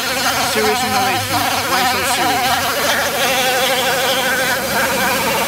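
Dremel 4000 rotary tool with a sanding drum grinding along the cut edge of a plastic bumper cover. It makes a steady high-pitched whine that wavers slightly as the drum bears on the plastic, smoothing the freshly cut edge.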